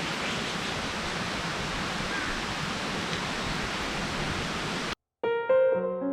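Steady rush of water from a mountain stream, which cuts off abruptly about five seconds in. Soft piano music starts right after.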